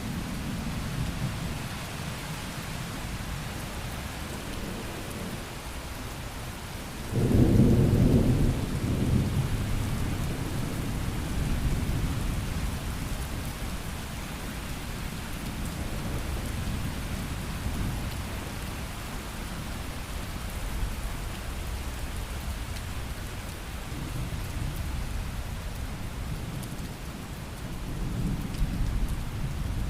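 Steady rain with rolling thunder. A louder thunderclap breaks about seven seconds in and rumbles away over the next few seconds, with more low rumbling near the end.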